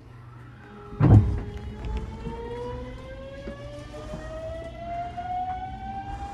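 Hanshin 9000 series electric train pulling away, heard from inside the car: its inverter and traction motors whine in several tones that rise together in pitch as it accelerates, over a low running rumble. About a second in there is a loud thump as the train starts off.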